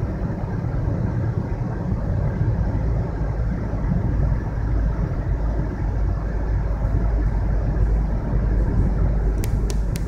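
Steady in-cabin driving noise of a 2010 Toyota Prius, its engine running, with the hybrid battery's cooling fan blowing at full speed to cool a battery running hot at about 47 °C. A few faint clicks near the end.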